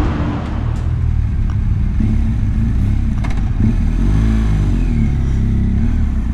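Motorcycle engine running while riding, its pitch rising and falling once about four seconds in.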